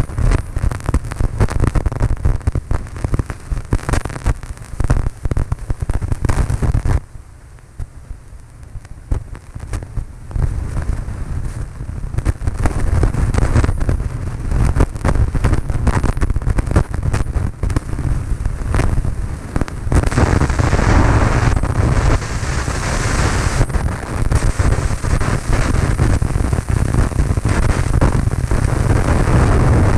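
Wind buffeting the microphone in rapid gusts over the steady noise of a Cessna 152 light aircraft in flight. The buffeting eases for a few seconds about seven seconds in, then returns.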